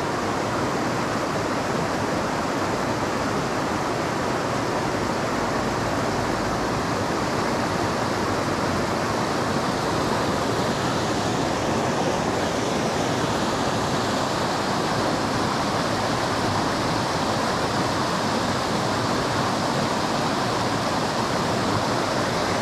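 Fast-flowing stream water rushing over rocks: a steady, unchanging rush.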